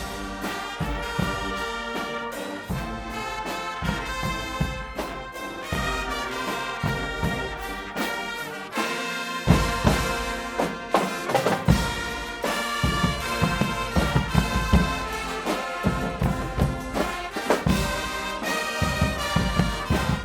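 Guggenmusik carnival band playing live: massed brass (trumpets and trombones) over a pounding drum section. The drums thin out about eight seconds in and come back in strongly a second and a half later.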